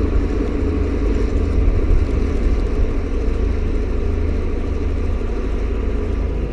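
Farm tractor engine running steadily, driving a PTO-powered snowblower.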